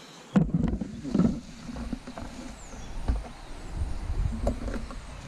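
Wind buffeting the camera's microphone: a low, gusting rumble that comes in suddenly just under half a second in. A few knocks from the camera being handled come in the first second or so.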